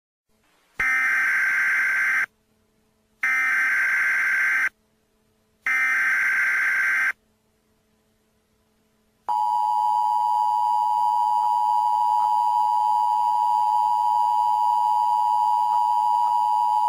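Emergency Alert System header tones: three short data bursts of about a second and a half each, about a second apart. About nine seconds in comes the steady two-tone EAS attention signal.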